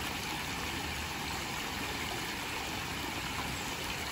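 Fast-flowing water rushing down a small irrigation canal, a steady even hiss.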